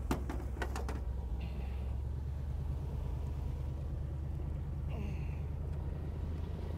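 A steady low engine hum on the bowfishing boat, with a quick cluster of sharp clicks and knocks in the first second.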